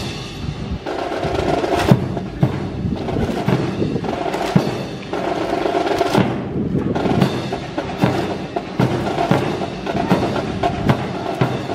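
A drill team's rifles slapped and struck in unison during a rhythm routine, giving many sharp wooden clacks and knocks over percussive music with a drum beat.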